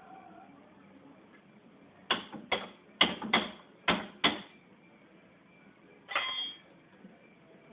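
Sharp metal-on-metal knocks while working at a seized bolt on a Fiat Palio Weekend's rear wheel bearing assembly: six strikes in quick succession about two seconds in, then a single clank with a short metallic ring about six seconds in.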